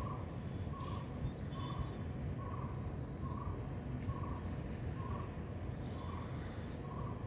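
A bird repeating one short, low note evenly, a little more than once a second, over a steady low rumble. A few faint higher chirps come from other birds.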